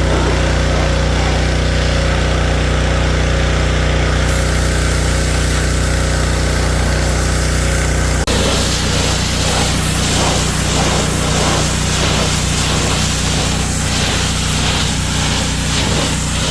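Small engine running steadily. About eight seconds in the sound changes abruptly and more hiss joins it.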